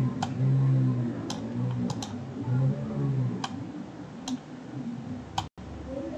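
Computer mouse clicking: about seven single, sharp clicks spaced irregularly, over a faint low background hum.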